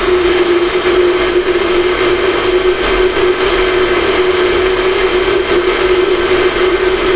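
Countertop glass-jar blender motor running steadily at full speed, puréeing a thin liquid pea purée. It gives a constant motor hum with a hiss over it and does not stop.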